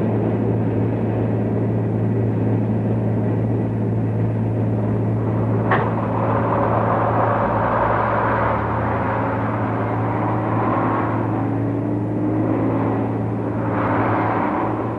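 Steady drone of a C-130 Hercules's turboprop engines running on the ground, with a constant low hum. Over it a military ambulance's engine climbs slowly in pitch as it pulls away, and a single sharp knock sounds about six seconds in.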